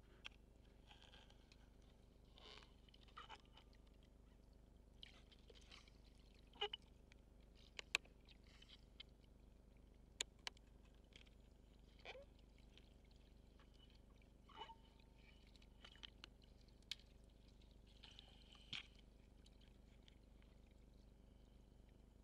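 Faint underwater sound: scattered sharp clicks and short crackles, a dozen or so, at uneven intervals over a low steady hum.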